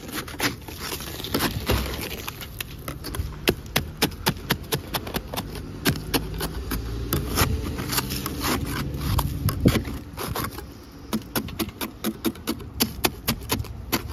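A wooden-handled steel scraper scraping a thick crust of ice and sleet off a car windshield, in a rapid run of short, sharp strokes.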